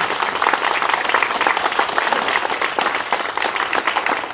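Crowd applauding, many hands clapping at once, starting suddenly and keeping up steadily.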